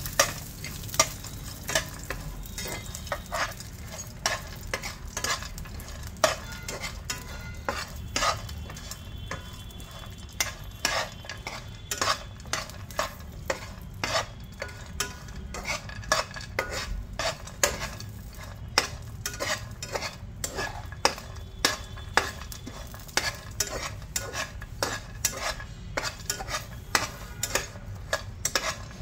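A spatula scraping and tapping against a granite-coated nonstick frying pan in irregular strokes, about one or two a second. It is stirring chopped cashews, almonds and raisins frying in a little ghee, with a faint sizzle underneath.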